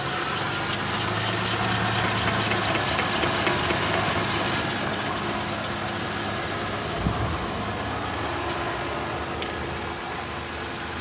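1995 Toyota Camry's engine idling in drive while the lifted front wheel's bare brake rotor and hub turn freely, with faint fast ticking over a steady hum in the first half.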